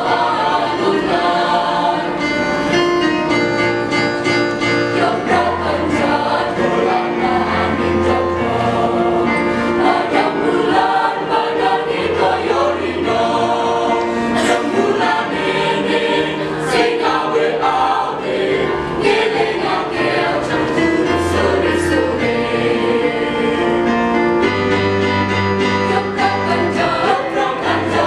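High-school choir singing in several parts, with held chords over a low bass line.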